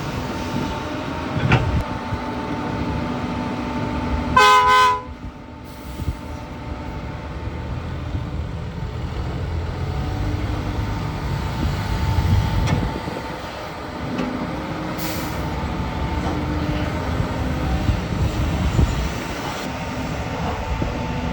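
Diesel engines of the Doosan DX220 excavator and dump trucks running steadily, with occasional clanks. About four seconds in, a vehicle horn sounds once for under a second, louder than everything else.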